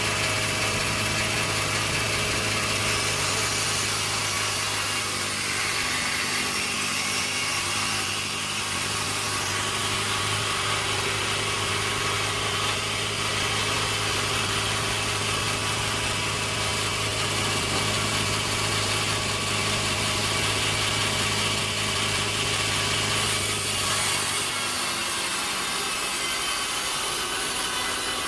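Sawmill machinery running: a steady engine hum under the hiss of a saw working through wood. The hum drops out near the end while the hiss carries on.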